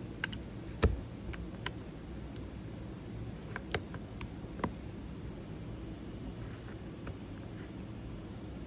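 Scattered sharp clicks and taps of small prying tools against an iPhone 12's screen edge and frame as the glued display is worked loose, the loudest about a second in, over a steady low hum.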